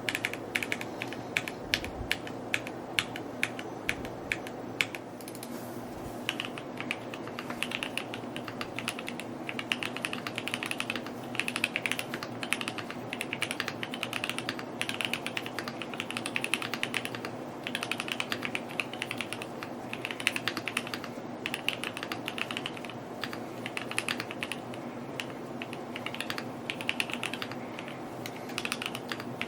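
Mode Encore 2 mechanical keyboard being typed on: fast runs of keystroke clacks with short pauses between words.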